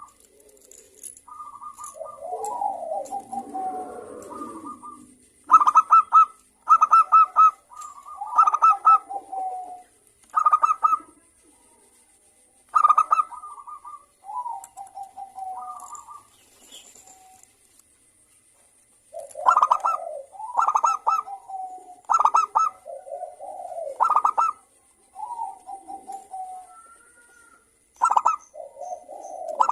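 Zebra doves (perkutut) cooing: repeated short phrases of rapid rattling coos, about one a second in bouts, with a pause of a few seconds midway before the singing resumes.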